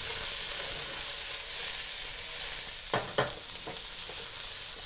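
Sliced red onion and spring onion stems sizzling steadily in oil in a wok over medium-low heat, being fried until fragrant. A wooden spatula stirs them and knocks against the pan a few times a little after halfway.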